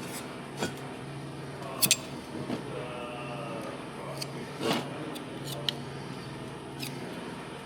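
Scattered light clicks and taps of small parts and tools being handled at a workbench, over a steady low hum.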